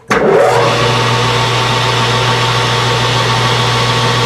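Metal lathe switched on: the motor and spindle start abruptly, their whine rising in pitch over about the first second as they come up to speed. They then run steadily with a hum and a constant whine.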